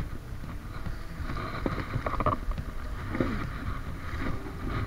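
Wind rumble and rubbing noise on a chest-mounted action camera's microphone, with grass and clothing rustling as the wearer moves.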